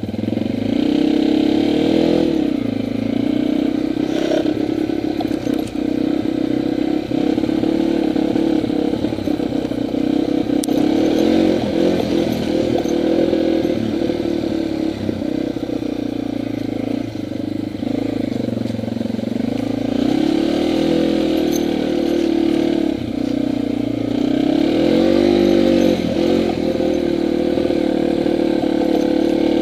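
Yamaha TW200's 200cc air-cooled single-cylinder engine running under way as the bike is ridden, its revs rising and falling several times with the throttle.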